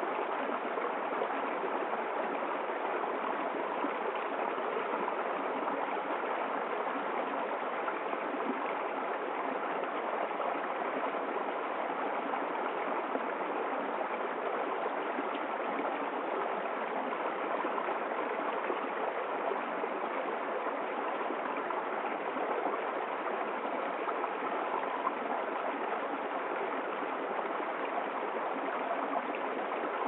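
A small stream running over rocks in a low cascade, a steady, even rush of water with no breaks.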